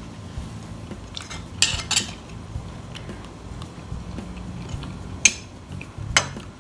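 Metal fork clinking against crockery while eating: several sharp clinks, two close together about two seconds in and two more near the end.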